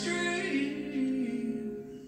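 Slow country ballad performed live: a male singer's held note over soft instrumental accompaniment, dying away near the end.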